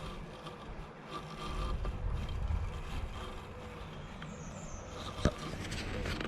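Low wind rumble on the microphone outdoors, with the faint steady hum of a Bosch Indego robot lawn mower working at a distance, and a single sharp click about five seconds in.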